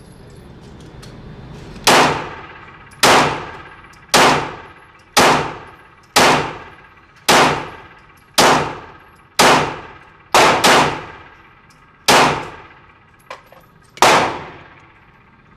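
Glock 19 Gen 4 9mm pistol firing twelve shots at a steady pace of about one a second, with a quick pair near the middle. Each shot cracks sharply and rings off in a long echoing tail.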